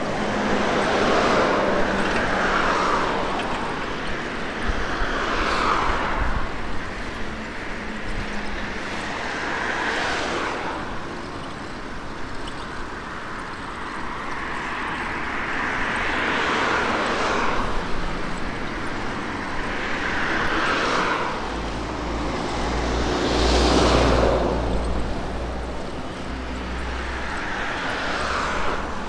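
Road traffic going past one vehicle after another, about seven passes, each swelling up and fading away with a falling pitch. A deeper low rumble sits under the passes about two-thirds of the way through.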